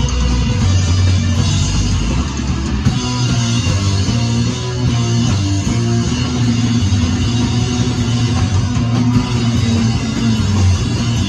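A live rock band playing loud, with guitar and drums, recorded from within the crowd.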